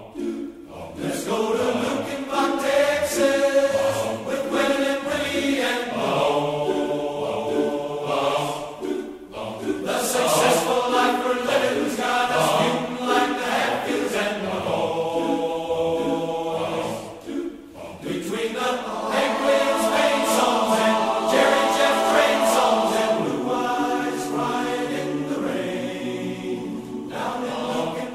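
Large men's barbershop chorus singing sustained chords in close harmony, phrase by phrase, with two brief breaks between phrases.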